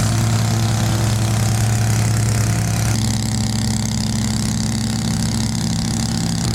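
Small gasoline engine of a plate compactor idling steadily, with no pounding from the plate.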